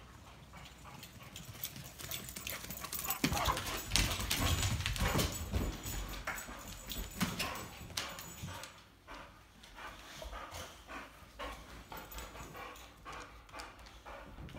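Boxer dogs' paws and claws clicking and tapping irregularly on a hardwood floor. A louder stretch of thumps and low rumble comes in the first half.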